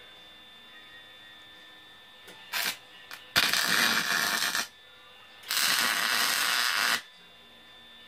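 Welding arc crackling in short bursts: a brief burst about two and a half seconds in, then two longer welds of about a second and a second and a half, tacking round bar for the tree's base.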